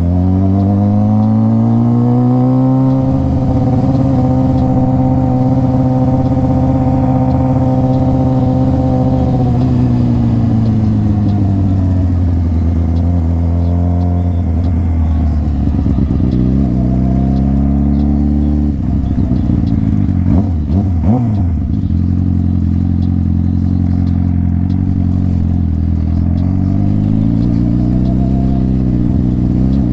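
Motorcycle engine while riding: it speeds up over the first few seconds, holds a steady speed, then falls off about ten seconds in. It eases off again a little before twenty seconds, settles to a steady speed, and drops once more near the end.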